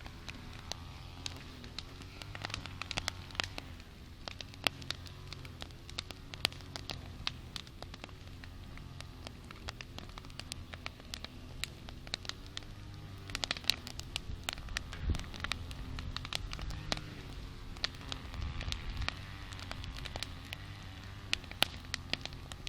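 Wood campfire burning, with irregular sharp crackles and pops that come in denser flurries in places, over a low wavering hum.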